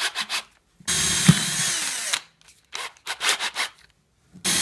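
Power drill run twice for about a second and a half each, its motor winding down in pitch as the trigger is let go, drilling a hole into the wooden broom head. Short clicks and knocks of handling come between the two runs.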